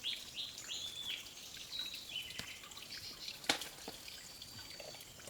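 A small bird calling: a quick run of short, rising, high chirps about three a second that stops about a second in, then scattered higher calls. A single sharp click about three and a half seconds in.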